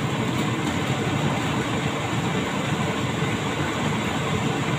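Sliced red onions sizzling steadily in hot oil in a frying pan, stirred with a wooden spatula as they brown.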